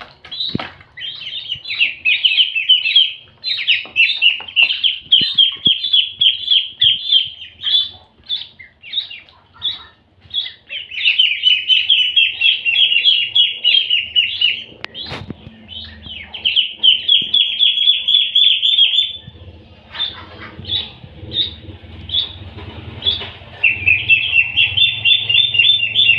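Ducklings peeping: quick, high chirps in long unbroken runs, falling quiet for a few seconds now and then. A single sharp knock about halfway through.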